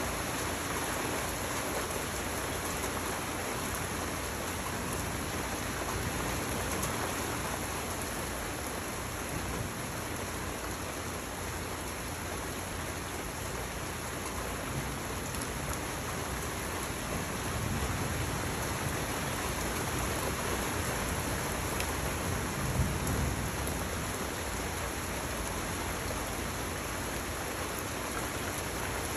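Steady rain falling during a thunderstorm, with a low rumble of thunder swelling about two-thirds of the way through.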